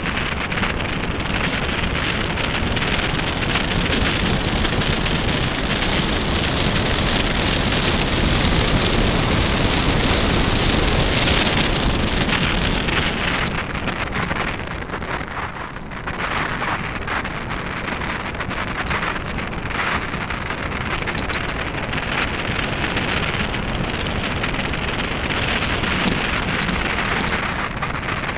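Mountain bike tyres rolling over a loose gravel dirt track, a steady crunching hiss with scattered small clicks, under a low rumble of wind buffeting the camera microphone. The hiss is strongest for the first twelve seconds or so, then eases.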